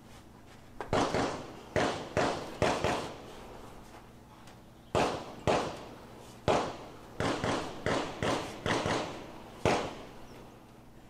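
Gunshots from other shooters on the range: about a dozen in quick, irregular succession, each trailing off in echo.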